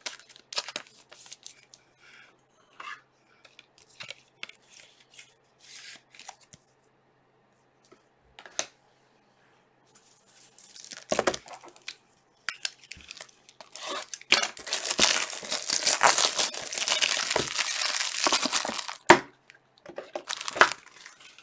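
A trading-card pack wrapper being torn open and crinkled, with small taps and clicks of cards and packs handled on a table. The tearing and crinkling grows dense and loud for several seconds past the middle and ends with a sharp click.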